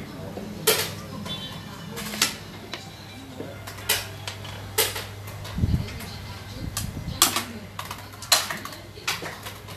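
Hard xiangqi (Chinese chess) pieces clicking and clacking as they are handled and set down, a sharp click every second or so with one duller thump about two-thirds of the way through, over a steady low hum.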